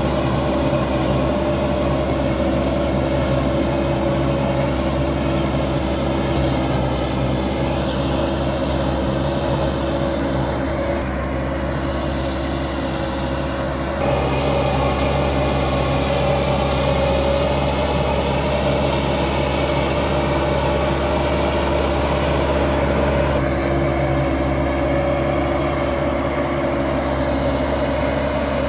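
Massey Ferguson 375 tractor's diesel engine running steadily under load as it pulls and drives a rotavator tilling the soil.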